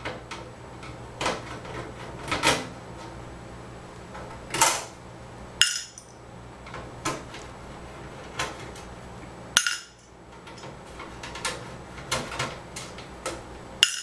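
Irregular small metallic clicks and clinks of a screwdriver and screws being worked out of a steel computer case, with a few sharper metal knocks.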